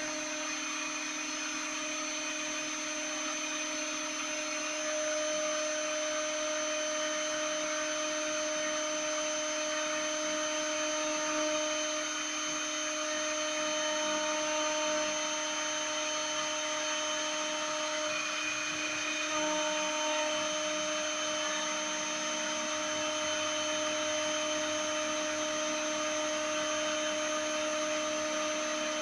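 Small CNC mill's spindle running steadily while milling a printed circuit board, a constant whine over a broad noise, with slight changes in the lower hum as the machine moves.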